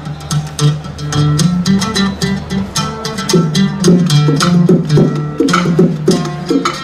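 An oud playing a plucked melody over a quick rhythm on bongo drums, with no singing.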